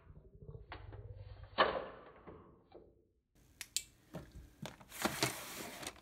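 Handheld paper crimper being handled: a low rumble from its rollers, then a sharp clack about a second and a half in. After a cut, a few light clicks and a short rustle of handling.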